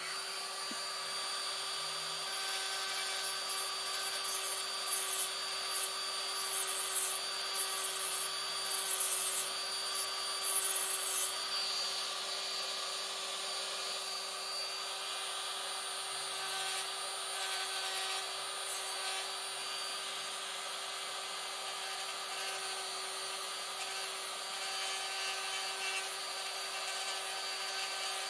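Small high-speed rotary power tool running steadily, with bursts of grinding as the bit works the material, mostly in the first ten seconds or so. It is switched off near the end and winds down in pitch.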